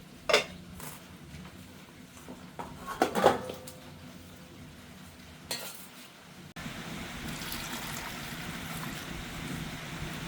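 Kitchen utensils clinking and knocking against pots and dishes: one sharp clink near the start and a quick cluster of knocks about three seconds in. About two-thirds of the way through, a steady hiss sets in.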